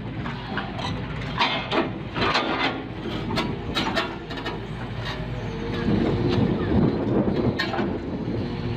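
A heavy vehicle's engine running with a steady low rumble, with repeated knocks and clanks; a steadier engine tone comes in past the middle.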